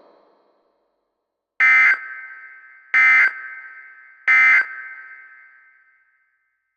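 Emergency Alert System end-of-message data bursts: three short, harsh digital screeches about a second and a half apart, each trailing off in an echo. They mark the end of the alert message.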